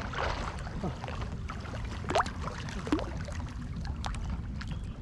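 River water lapping and splashing close to a camera at the waterline, with small bubbling splashes and droplets over a steady low rumble.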